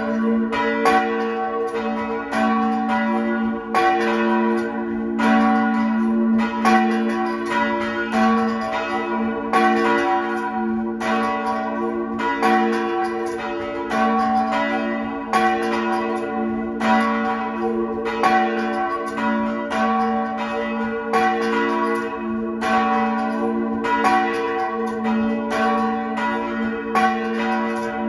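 Two bronze church bells swinging together: a smaller bell tuned to B4 (cast 1867) and a larger bell tuned to F-sharp 4 (cast 1896), both by Nils Petter Linderberg of Sundsvall. Their strokes come about once a second and overlap over a continuous ringing hum, heard close up inside the bell chamber. This is the joint ringing that calls the congregation to a service.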